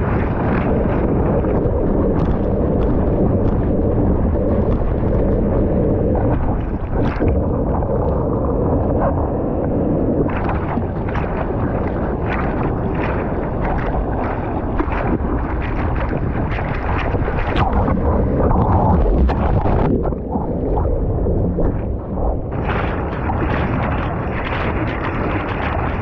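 Wind buffeting the microphone together with water splashing and sloshing as a surfer paddles prone on a surfboard through the ocean.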